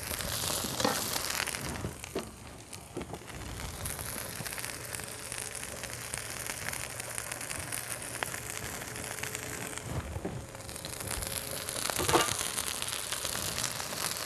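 Chicken pieces frying on an electric griddle: a steady sizzling hiss, with a few soft knocks from handling and some wind rumble on the microphone.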